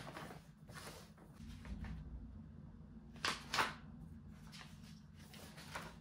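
Household handling sounds: scattered soft knocks and clacks, with two sharper clacks in quick succession about halfway through, over a low steady hum.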